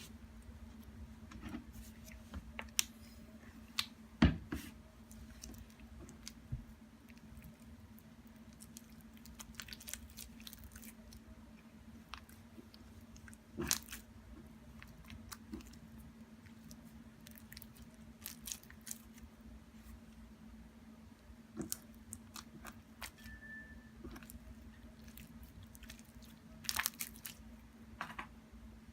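Slime being worked: scattered soft squishes and sharp clicks, the loudest about four seconds in, again around fourteen seconds and near the end, over a faint steady hum.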